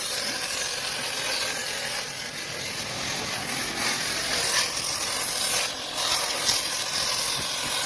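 Oxy-acetylene welding torch flame hissing steadily.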